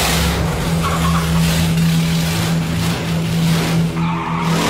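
Tractor engine running at a steady pitch while its tyres skid and scrub across a dusty concrete floor, with a hissing skid noise over the engine note.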